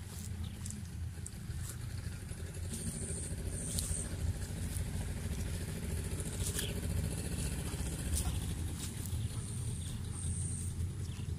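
Steady low rumble, with a few short high chirps about three seconds in, near four seconds, and about ten seconds in.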